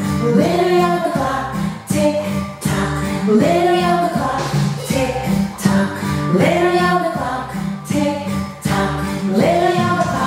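Children's yoga song: a woman singing over a steady beat, with the same rising-and-falling phrase coming back about every three seconds.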